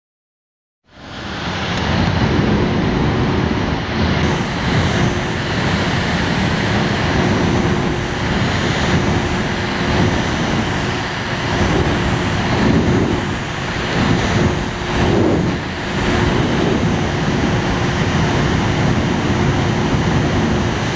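Small electric fan running: a loud, steady rush of air with a steady motor hum, starting abruptly about a second in.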